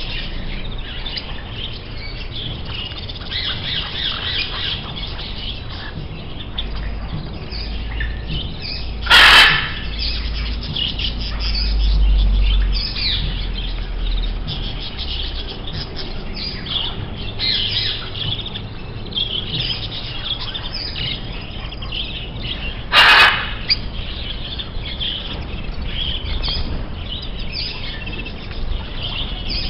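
Birds chirping and calling, with many short calls overlapping continuously. Two brief, loud, harsh sounds stand out about 9 and 23 seconds in.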